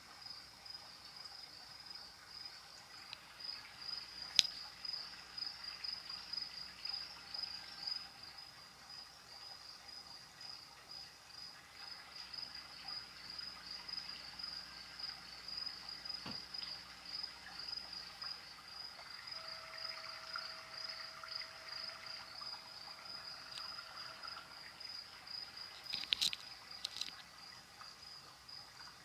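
Crickets chirping in a steady, evenly pulsing high trill, with one sharp click about four seconds in and a few more clicks near the end.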